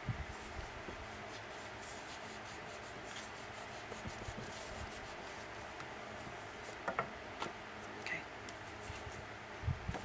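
Bone folder rubbed back and forth over paper, smoothing down a glued paper panel: a steady dry scratchy rubbing, with a few light clicks and knocks in the last few seconds.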